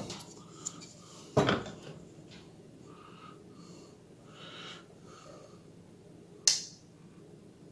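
Handling noise from a PC case fan and its wiring on a desktop: a few knocks and clicks, the loudest a sharp click about six and a half seconds in as the speed-controller knob is handled, with faint soft rustling in between.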